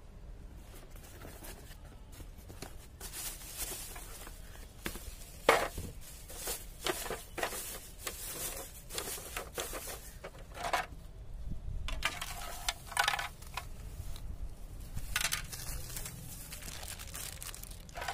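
Plastic wrapping rustling and crinkling in irregular bursts as a new plastic mixer-grinder body is unpacked and handled, with light knocks of hard plastic parts and one sharper knock about five and a half seconds in.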